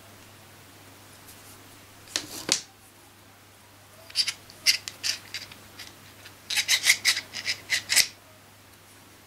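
Metal clicks and scrapes of a B12 taper drill chuck being handled and fitted onto the drill's gear spindle: a short cluster about two seconds in, then two runs of quick clicks, the loudest just before the end.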